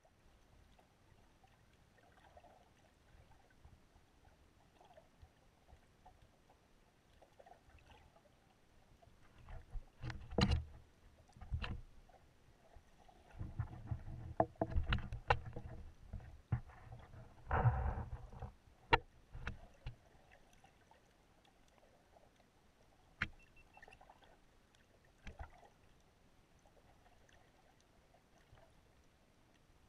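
Underwater sound through a camera housing: a faint, steady low wash of moving water with scattered sharp clicks and knocks. About midway, a rougher low rumble with a faint hum runs for several seconds.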